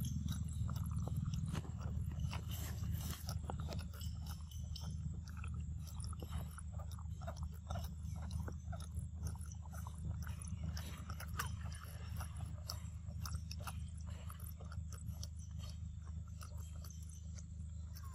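Macaque chewing and sucking at a drink carton, making many small crackles and clicks over a steady low hum.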